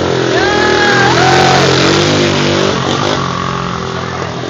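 ATV engine running steadily close by. Two long, arching high-pitched tones sound over it between about half a second and a second and a half in.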